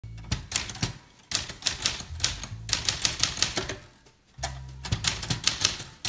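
Olivetti Lettera 31 manual portable typewriter being typed on: quick runs of sharp keystrikes as the type bars hit the paper, with short pauses about a second in and around four seconds in. Background music with a low bass line plays underneath.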